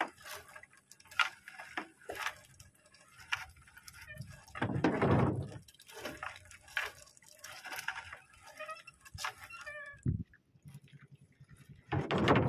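Water dripping and splashing, with scattered knocks and rustles, as a fishing net is hauled in by hand over a small boat. There are two louder surges of noise, one about five seconds in and one near the end.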